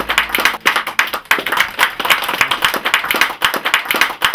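A small group of people applauding, many hands clapping quickly and unevenly.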